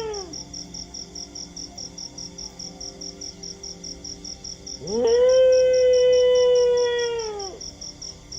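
A dog howling: one long howl that swoops up, holds a steady pitch for about two and a half seconds, then falls away, after the falling tail of an earlier howl at the very start. Underneath, a rapid, even, high chirping at about six pulses a second, like crickets.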